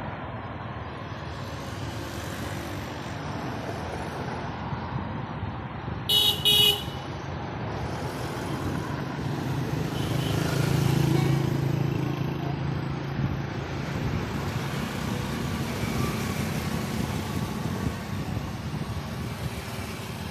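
Steady city road traffic noise, with a vehicle horn tooting twice in quick succession about six seconds in. Around ten seconds a nearby vehicle's engine hum grows louder, then fades a few seconds later.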